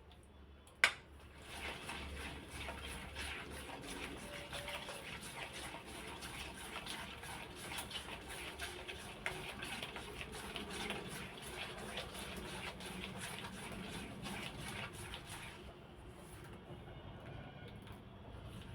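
A spoon or whisk clattering against a bowl as cake batter is mixed: a sharp knock about a second in, then fast, continuous clicking and scraping that stops about 15 seconds in.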